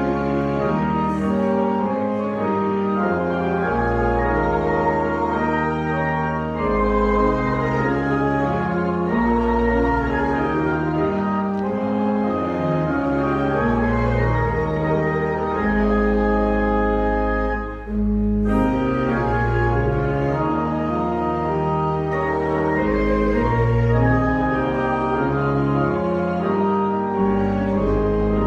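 Church organ playing slow, sustained chords that change step by step, with a brief break about 18 seconds in before the music carries on.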